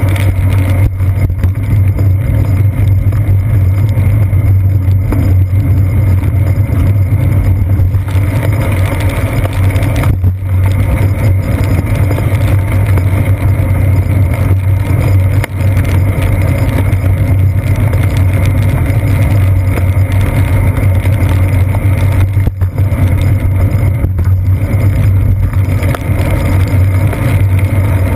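Steady low rumble of road vibration and wind heard through a seat-post-mounted action camera's waterproof housing as a bicycle rolls over wet pavement.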